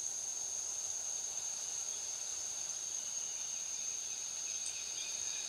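Steady high-pitched drone of forest insects, with a fainter, lower insect tone beneath it.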